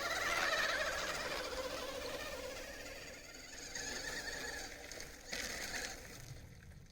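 Radio-controlled model excavator's small electric drive whirring with a scratchy rustle. It fades after a few seconds, with two brief swells near the end.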